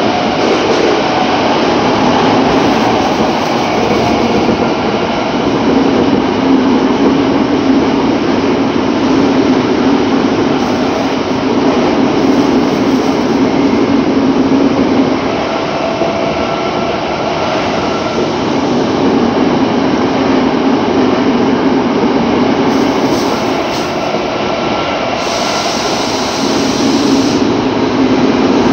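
Tokyo Metro 07 series subway train running, heard from inside the car: a steady rumble of wheels on rail, with a low hum that fades in and out.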